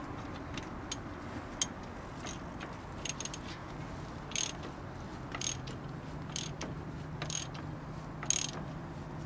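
Sharp metallic clicks, scattered about once a second and some in quick pairs, as a wrench or ratchet is worked on a bus's S-cam air-brake assembly. A faint low hum comes in about halfway.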